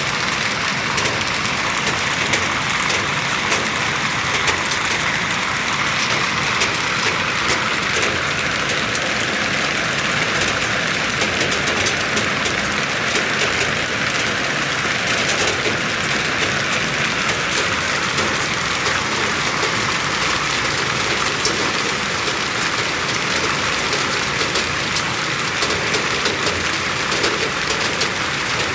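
Heavy rain and hail falling onto hard surfaces: a dense, steady hiss of downpour with many sharp ticks of individual strikes.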